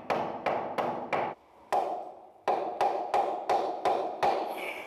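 A wooden batten being knocked with a series of sharp taps, about a dozen in quick runs with a short pause between them, to drive it slightly deeper so the facing board bears evenly on it.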